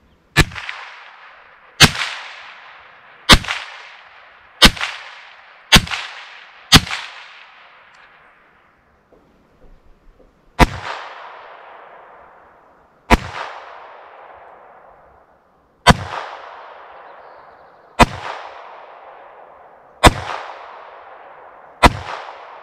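Twelve .22 Long Rifle shots. The first six come from a Ruger 10/22 semi-automatic rifle, about a second apart. After a pause of about four seconds, six more come from a Beretta M9/22 pistol, spaced about two seconds apart. Each crack trails off in a long echo.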